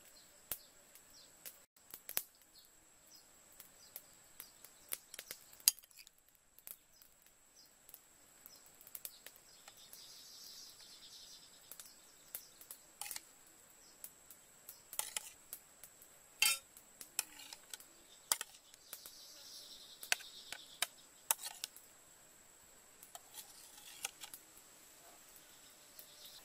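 Metal spoon clinking and scraping against a ceramic plate and bowl while cutting and scooping soft jelly, in scattered sharp clicks with a couple of brief scrapes.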